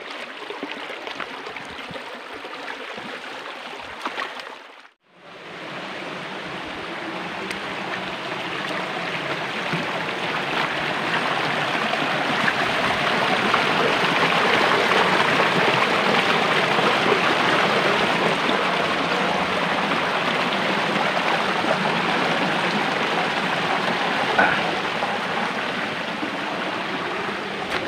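Rocky mountain creek rushing and splashing over boulders. The sound cuts out briefly about five seconds in, then grows louder as the creek is approached.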